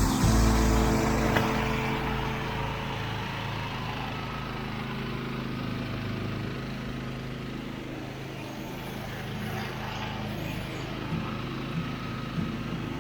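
Engine of a homemade ride-on zero-turn lawn mower running steadily. It is loudest at the start and eases down over the first couple of seconds.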